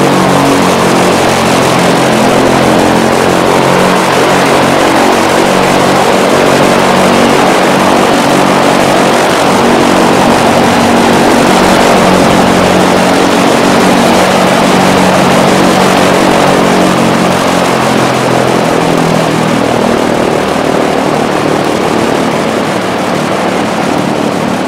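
Lockheed P-38F Lightning's twin Allison V-1710 liquid-cooled V-12 engines running together, loud and steady. The sound eases off slightly over the last few seconds.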